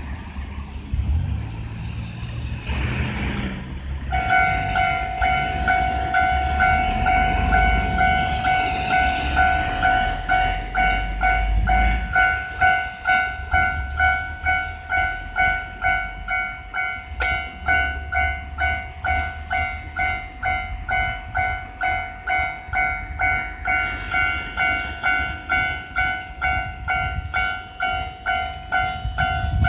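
Japanese level-crossing electronic warning bell starting up about four seconds in, then ringing in an even, repeating ding a little under twice a second. A low rumble runs under it for the first dozen seconds, and a single sharp click comes in the middle.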